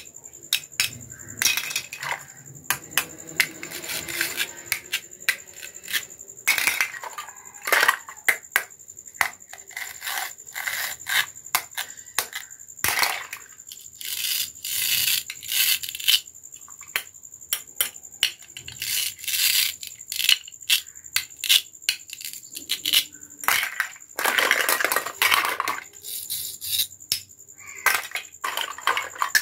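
Hard plastic toy fruit and vegetable pieces clicking and clattering as they are handled and put into a plastic basket, with several scratchy rasps a second or two long from their velcro-fastened halves.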